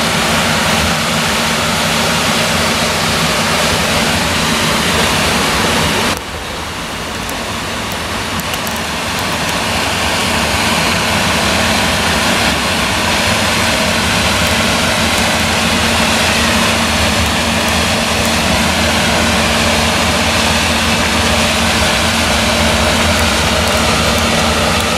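New Holland CX combine harvester running while harvesting maize with an eight-row Geringhoff corn header: a steady engine drone mixed with the noise of the header and threshing. About six seconds in it gives way to a John Deere tractor's engine running as the tractor drives across the stubble, growing louder as it comes closer.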